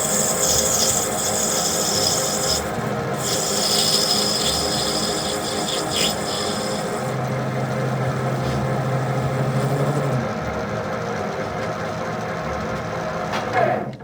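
Steel being cut in a machine shop: a steady rasping cutting noise over a machine's running hum, with a low hum joining for a few seconds midway. It stops abruptly at the end.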